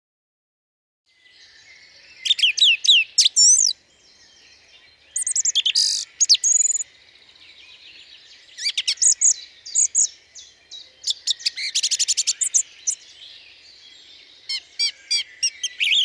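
Thrush singing: five or so loud phrases of whistles and quick trills, a second or two apart, over a faint steady background. It starts about a second in.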